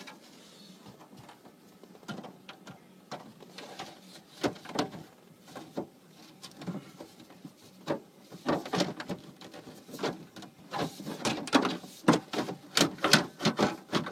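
Plastic dashboard trim of a 2003 Chevy Silverado being pushed and snapped back into place: a run of scattered clicks, taps and knocks that come faster and louder over the last several seconds.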